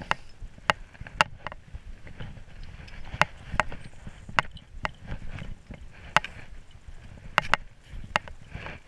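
Climbing gear and ice axe clinking in sharp metallic clicks at irregular intervals, over the low crunch of boots and the axe shaft going into fresh snow.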